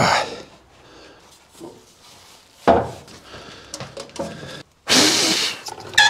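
Handling noises from a combination planer-thicknesser being set up for thicknessing: a sharp metal clunk as the table is swung up, a thud and small knocks, and a loud rubbing scrape about five seconds in as the ribbed plastic dust-extraction hose is pushed onto the outlet.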